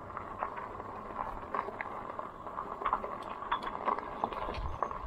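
Lectric XP e-bike rolling along: a steady running noise with scattered small clicks and rattles.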